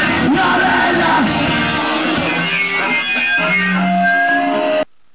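Live electric guitar from a hardcore punk band playing through an amp, recorded in mono. The dense, full sound thins about two seconds in to single held guitar notes, then cuts off abruptly to silence near the end.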